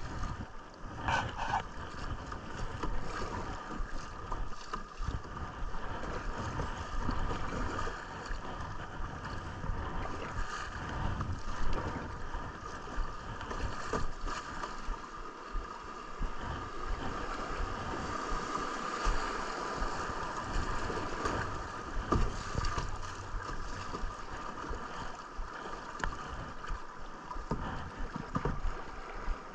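River water rushing and gurgling around a kayak on a moving river, with uneven wind rumble on the action-camera microphone and a few light knocks.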